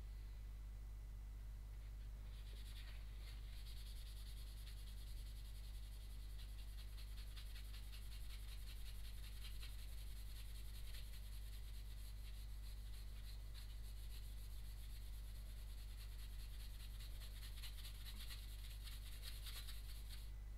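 Faint, rapid back-and-forth rubbing of a wad of paper with polishing liquid on a santoku's steel blade, scrubbing off surface rust; it starts about two seconds in.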